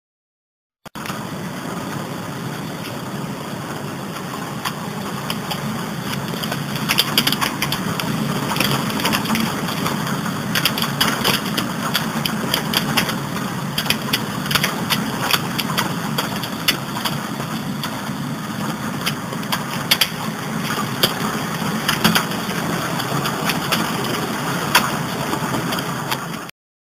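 Hailstorm with heavy rain: a steady rush of downpour, with many sharp ticks of hailstones and drops striking the window glass and sill, coming thicker from about seven seconds in.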